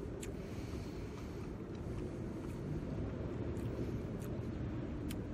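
Steady low outdoor rumble, with a few faint clicks and smacks from a man chewing a mouthful of food.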